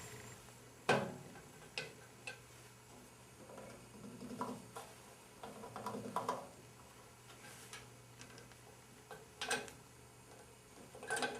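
Irregular clicks and knocks of hand adjustment on a planer/jointer as its outfeed table is raised to match the knife height, the sharpest about a second in.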